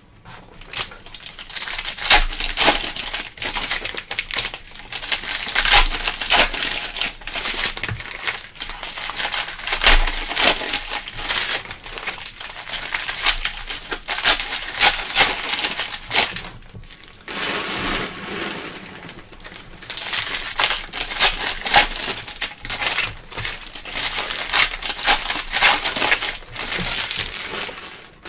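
Trading card pack wrappers crinkling and tearing as packs are opened and handled, in close, irregular crackles with a short lull about two-thirds through.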